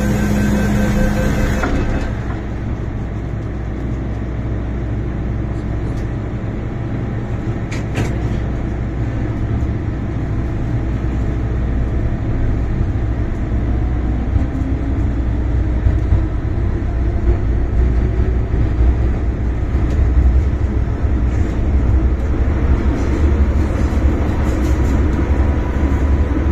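MTR M-Train electric multiple unit pulling out of a station and running into a tunnel: rapid door-warning beeps in the first two seconds, then a steady low rumble of the train under way, with a motor whine rising in pitch as it speeds up, growing louder in the second half.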